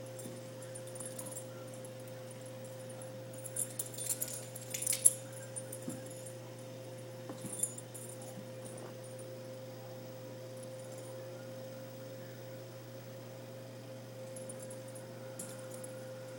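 Wheaten terrier dashing after a laser pointer dot: a few bursts of jingling and clicking, about four to five seconds in and again near eight seconds. A steady hum runs underneath.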